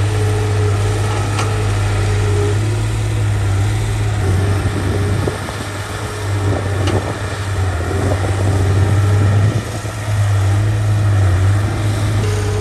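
Heavy earthmoving machine's diesel engine running with a steady low drone, its loudness rising and falling with the work. A short sharp knock comes about a second and a half in and again about seven seconds in.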